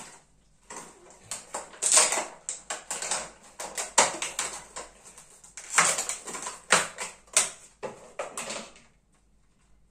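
Clear plastic blister packaging crinkling and crackling as it is pried open by hand to free a small figure: an uneven run of sharp crackles and snaps, stopping near the end.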